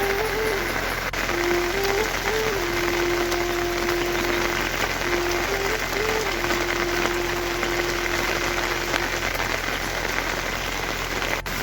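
Heavy rain falling steadily, an even hiss, with a slow melody of long held notes playing over it.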